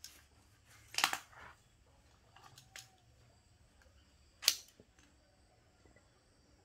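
Pruning shears snipping through a green papaya stem: a sharp snap with a quick follow-up click about a second in, and another single sharp snap about four and a half seconds in.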